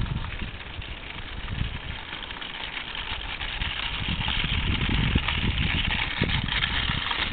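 Electric motor and propeller of an FMS Sbach 342 radio-controlled aerobatic plane running at low throttle as it taxis, a steady whirring hiss that swells in the second half. Wind rumbles on the microphone.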